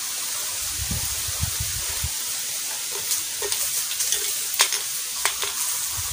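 Footsteps crunching and crackling on dry fallen bamboo leaves, with a few soft thuds early and sharp crackles in the second half, over a steady hiss.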